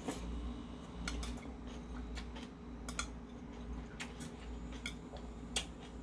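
Metal chopsticks clicking against a porcelain plate: short sharp ticks about once a second, the loudest one near the end.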